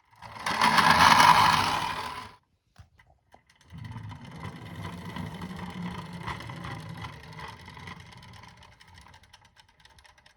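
A loud burst of noise lasting about two seconds, then after a short pause a toy car's small motor and plastic wheels whirring and rattling, slowly fading away.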